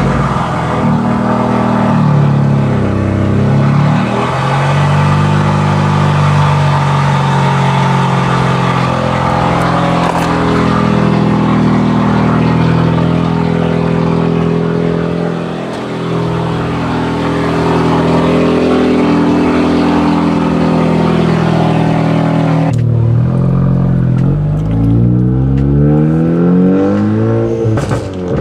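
A big-turbo Ford Focus ST's 2.0-litre EcoBoost four-cylinder running after being started. After a sudden change about 23 seconds in, it pulls under load, with revs rising and dropping back twice as it shifts up.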